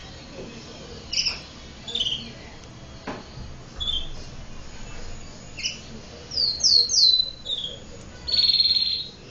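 Domestic canary singing: scattered short high chirps, then a quick run of three downward-sweeping whistles about two-thirds through, and a rapid buzzing trill near the end.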